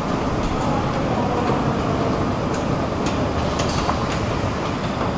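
A descending metro-station escalator running with a steady low mechanical rumble, and a few light clicks as it reaches the bottom landing.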